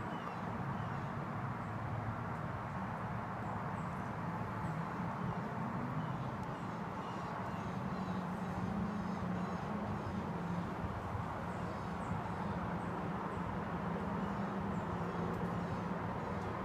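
Outdoor background noise: a steady low rumble with many faint, short high chirps scattered through it.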